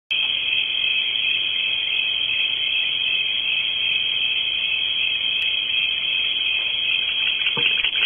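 Steady high-pitched hiss with a faint whine in it; a few soft knocks come in near the end.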